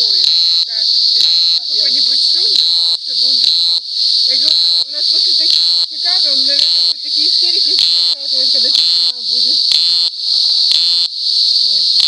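Cicada singing: a loud, steady high buzz that dips and swells again in repeated phrases about once a second.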